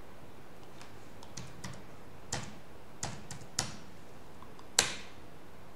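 Keystrokes on a computer keyboard: a handful of separate key clicks, a number being typed in. One sharper click comes about five seconds in.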